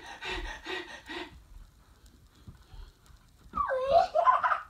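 Young child's voice: a quick run of short breathy vocal sounds, about four a second, in the first second. After a pause, a pitched, wavering whine or squeal near the end.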